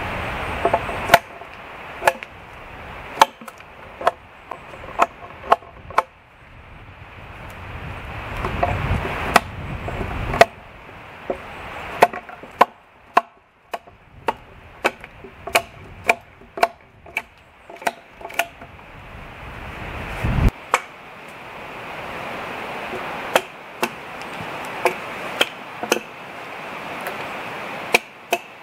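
Hatchet chopping into a wooden pole: a run of sharp, uneven strikes, often one or two a second, broken by pauses of a few seconds.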